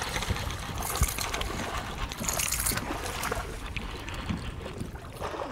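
Hooked bass splashing at the surface just after striking a Spook topwater lure, with a sharp knock about a second in.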